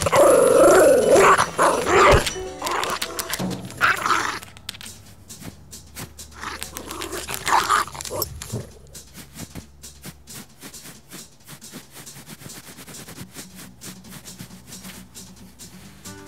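Chihuahua puppy vocalizing over light background music: a long spell in the first four seconds and a shorter one around seven seconds in.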